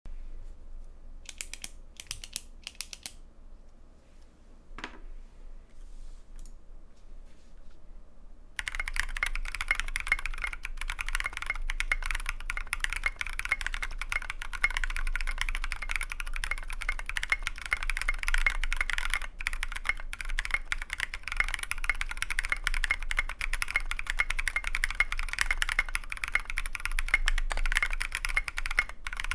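Typing on a KBDFans Tofu V2 custom mechanical keyboard with a brass plate, lubed NK Blueberry tactile switches and SA-profile PBT keycaps. A few scattered keystrokes at first, then about nine seconds in steady, fast continuous typing.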